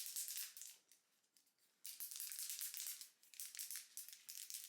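A Monat Studio One dry shampoo spray can being shaken hard, a quick rattling shake that pauses for about a second early on and then starts up again.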